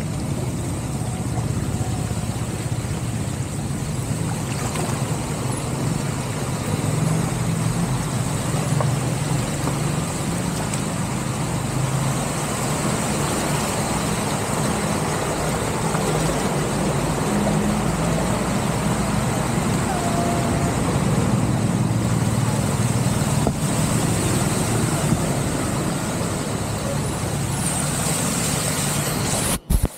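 Steady rushing noise of cars driving through a flooded street, mixed with floodwater running into a storm drain. The sound drops out briefly near the end.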